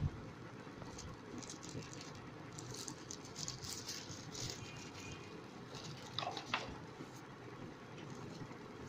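Light rustling and small ticks of packaging being handled during an unboxing, with a couple of sharper clicks about six seconds in.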